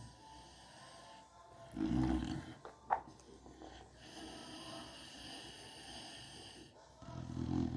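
American Bully dog snoring in its sleep: two low, rasping snores about five and a half seconds apart, one about two seconds in and one near the end. About three seconds in there is a brief sharp squeak.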